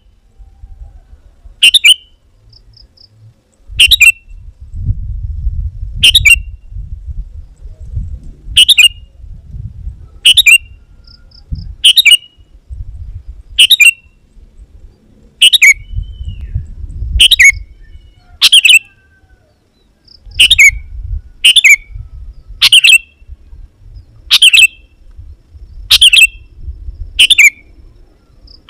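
Sooty-headed bulbul calling over and over, about sixteen short, loud calls, one every one and a half to two seconds, each sweeping down in pitch. A low rumble runs underneath between the calls.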